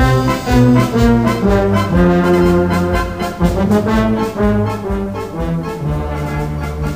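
Wind band playing a military march: brass carrying the melody and bass line over a steady beat of about two a second.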